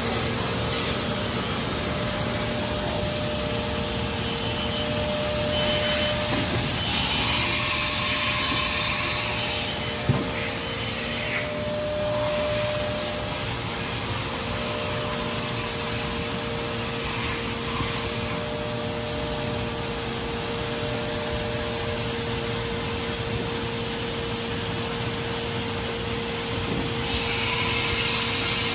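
Steady mechanical drone of machinery running in a machine shop, carrying two steady hum tones. Short bursts of hissing come in about seven seconds in and again near the end.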